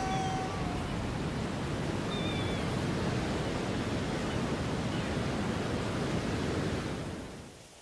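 Steady rushing ambience of wind and sea surf, fading out about seven seconds in. A held tone dies away right at the start.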